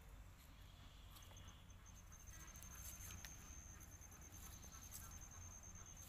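Near silence: faint outdoor background with a thin, high, steady tone that starts as a few short pips about a second in and then holds to the end, plus a few faint clicks.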